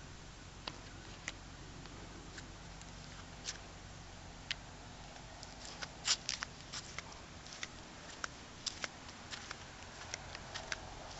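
Light, irregular clicks and ticks from a toy wagon with a wire cage rattling as it is moved over the concrete pavement, a few at first and coming thicker in the second half.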